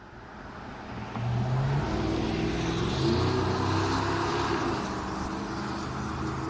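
A motor vehicle driving past, its engine hum and road noise swelling over about two seconds, holding, then fading away near the end.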